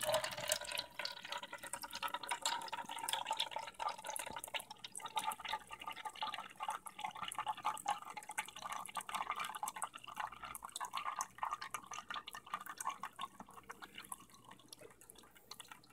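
Thin stream of liquid running from a dispensing needle into a plastic cup, a steady patter of small splashes that grows fainter toward the end.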